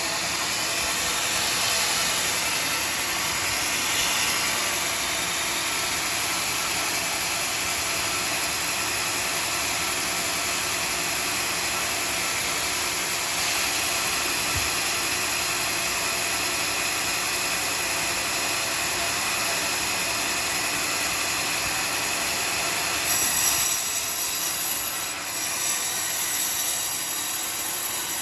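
Homemade sawmill running and sawing a teak log: a steady, even mechanical noise. About five seconds before the end the noise turns louder and higher-pitched.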